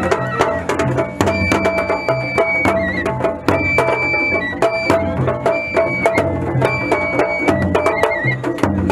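Japanese festival music: a large taiko drum on a festival float beaten with sticks in a fast, steady rhythm, with a high melody of long held notes playing over it.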